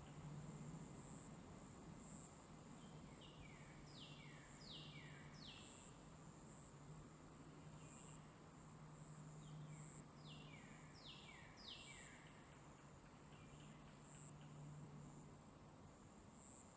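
Faint meadow ambience: a steady high-pitched insect trill that pulses every second or so, with two short phrases of bird song, each of three or four quick descending notes, about three seconds in and again about ten seconds in. A faint low hum runs underneath.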